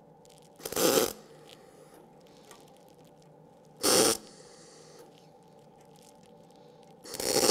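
MIG welding arc on sheet-metal panel: three short crackling bursts, one tack weld each, about three seconds apart. The first is about a second in, the second about four seconds in, the last near the end.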